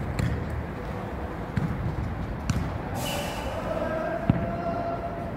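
A jokgu ball being kicked and bouncing on the hard court during a rally, as a handful of sharp thuds. The loudest thud comes a little past four seconds in.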